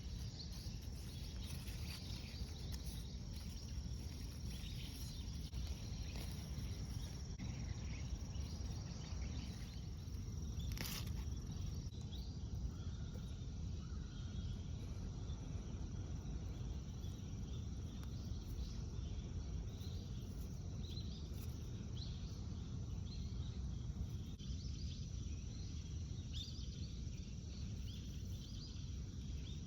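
Insects chirping steadily in a thin, high trill over a low, steady outdoor rumble, with one sharp click about eleven seconds in.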